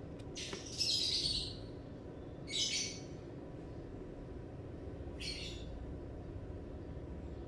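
A bird chirping three times over a steady low hum; the first call, about half a second in and lasting about a second, is the loudest.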